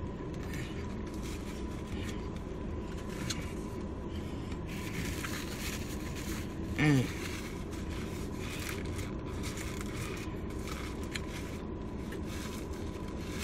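A person eating, with faint chewing and small mouth noises over a steady background hiss and a faint high hum. About seven seconds in, a short hummed 'mm' with a swooping pitch.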